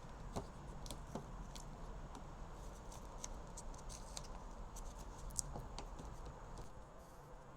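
Faint, scattered small clicks and handling noise as painter's tape is pulled off the roll and pressed around a car door handle, with one sharper tick about five seconds in.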